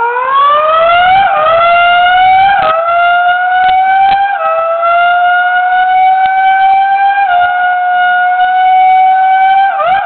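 Formula 1 pit-stop pneumatic wheel gun spinning freely, a loud whine that rises in pitch as it spins up, then holds nearly steady with a few brief dips.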